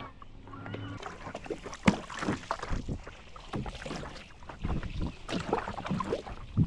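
Kayak paddling: a double-bladed paddle dipping and splashing in choppy water at an irregular pace, with a sharp knock about two seconds in.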